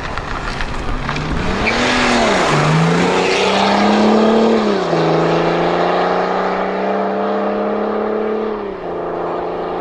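BMW 3 Series estate car accelerating hard away. The engine climbs in pitch, drops at a gear change about two seconds in, and climbs again to a second shift near the middle. It then runs at a steady pitch and steps down slightly near the end. A rush of tyre noise comes as it pulls away.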